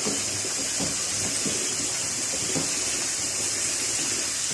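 Chicken and masala sizzling steadily in a nonstick pan, a steady hiss, as a silicone spatula stirs through it with soft scrapes and knocks. The curry is being fried (bhuna) over raised heat.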